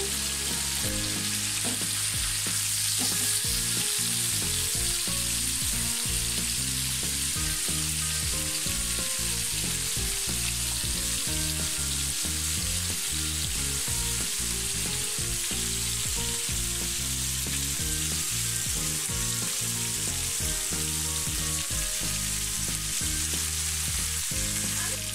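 Whole chapila fish (Indian river shad), rubbed with spices, sizzling steadily as they deep-fry in hot oil in a wok.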